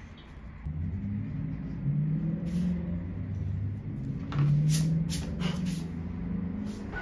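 A low, steady rumble that shifts in pitch a few times, with several light clicks and knocks as a small hand tool and a leather boot are handled on a workbench mat.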